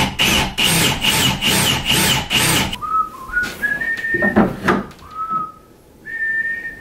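Quick rhythmic rasping strokes on wood, about four a second, stop after a couple of seconds. A person then whistles a short tune of held notes.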